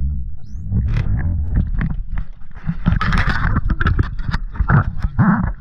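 Wind buffeting an action camera's microphone on a jet ski at sea, a heavy irregular rumble, with scattered knocks and scrapes as the camera is handled and moved about. A brief rush of noise comes about three seconds in.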